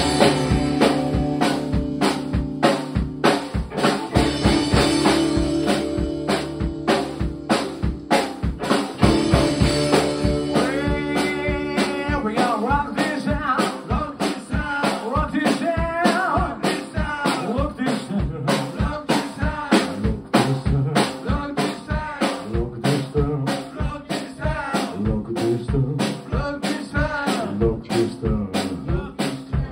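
Rockabilly band playing live: drums keeping a steady beat under an upright double bass and electric hollow-body guitars, with a lead vocal coming in about halfway through.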